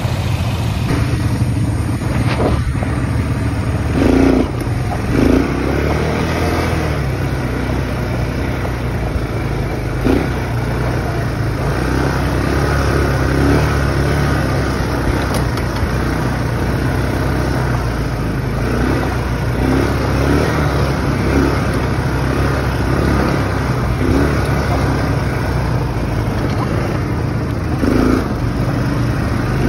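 ATV engine running steadily while the quad is ridden along a rough dirt track, with a few louder knocks about four and five seconds in and again near the end.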